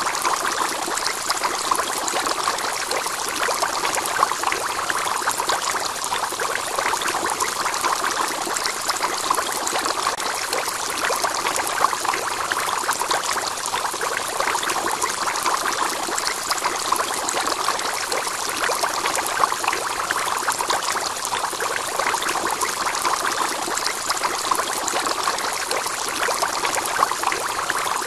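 Aquarium water trickling and splashing steadily, the sound of the external filter's return flow circulating the tank water.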